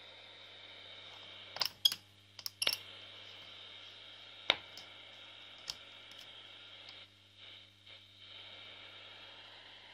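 Grundig Satellit 6000 portable radio's loudspeaker giving a steady hiss of static with a low hum while it is being tuned. The hiss is broken by about six sharp clicks from handling its controls. About seven seconds in, the hiss dips and wavers.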